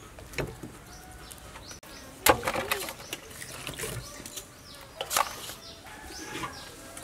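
Two cleaned whole fish dropped one after the other into an aluminium basin, two wet thuds about three seconds apart, each with a brief metallic ring. Birds chirp in the background.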